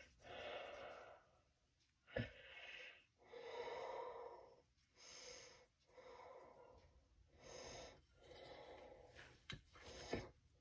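Faint breathing close to the microphone, a string of soft breaths about a second apart, with a few brief soft taps.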